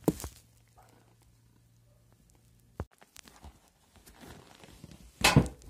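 Handling noise as a gloved hand moves car-seat foam and upholstery: a sharp knock at the start, a click about three seconds in, soft rustling, and a brief louder rustle near the end.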